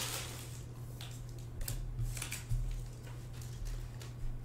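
Thick trading cards being handled and slid against each other: a few light scrapes and clicks over a low steady hum.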